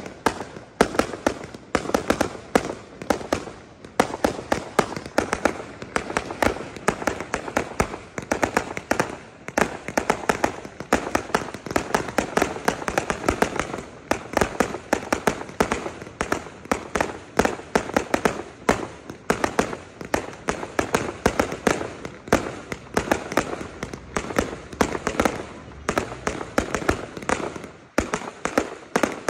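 Aerial fireworks display going off: an unbroken stream of sharp bangs and pops, several a second.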